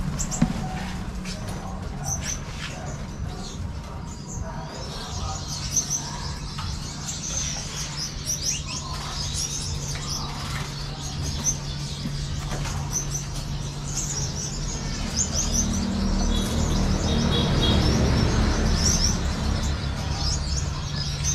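Many caged Gouldian finches chirping, short high calls coming thick and fast, over a steady low hum.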